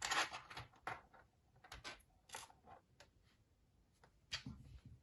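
Small plastic minifigure parts and their packaging being handled: irregular rustling with light plastic clicks, busiest in the first second.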